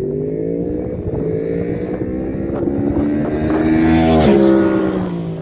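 Motorcycle engine passing by at speed: its note rises slowly as it closes in, is loudest about four seconds in, then drops sharply in pitch as it goes past.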